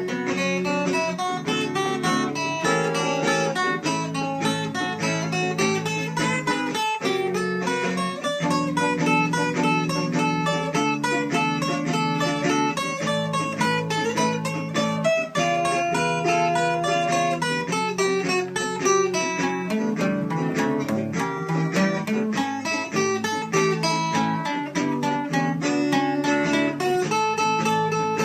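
Guitar, likely acoustic, playing an instrumental passage: quick runs of picked notes over strummed chords, with no singing.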